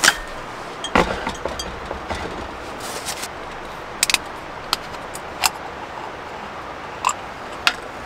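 A few short, sharp clicks and knocks of small objects being handled, over a steady hiss.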